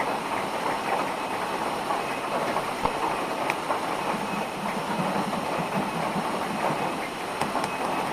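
Steady rushing noise of falling water, with no pauses.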